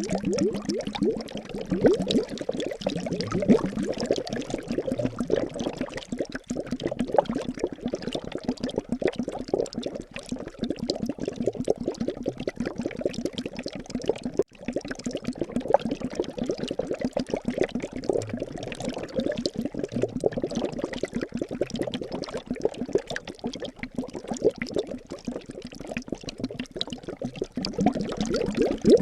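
Liquid bubbling and gurgling continuously in rapid, irregular pops, with a momentary break about halfway through.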